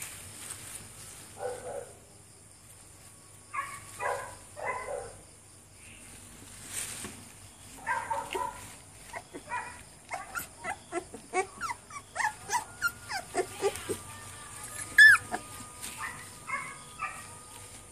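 Red-nose pit bull puppies giving short yips and whimpers while being handled, coming thick through the middle, with one louder high squeal about fifteen seconds in.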